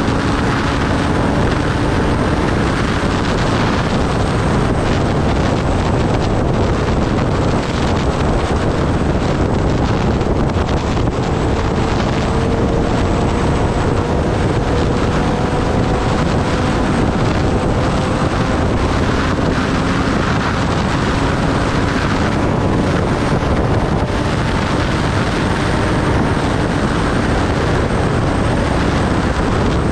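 Kawasaki Ninja ZX-10R inline-four engine running at road speed, its note drifting slowly up and down, mostly covered by steady wind rush on the microphone.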